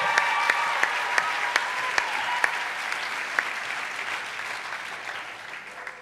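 Audience applauding after a live song, with a few sharp individual claps standing out, the applause dying away gradually toward the end.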